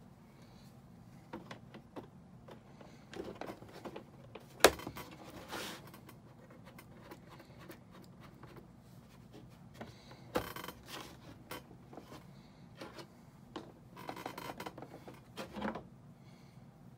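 Handling noises on a worktable: scattered light clicks and rustles, a sharp knock about four and a half seconds in (the loudest sound), another knock about ten seconds in, and a stretch of rustling near the end, over a faint low steady hum.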